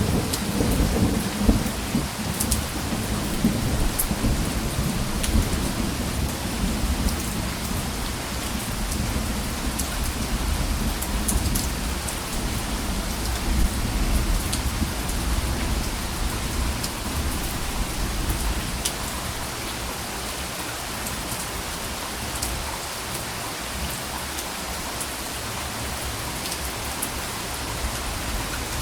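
Steady rainfall hissing, with a low rumble of thunder rolling through the first two-thirds and fading away, then rain alone. Scattered sharp ticks of drops striking nearby surfaces.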